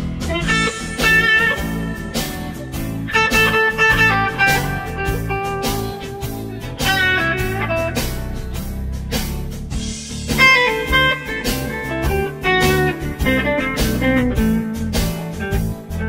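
Background music: a guitar-led, blues-style track with a steady beat.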